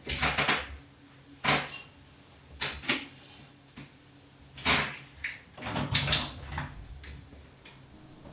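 Household handling sounds: a string of short knocks, clicks and brief scraping rustles, about six of them, as things are moved and set down.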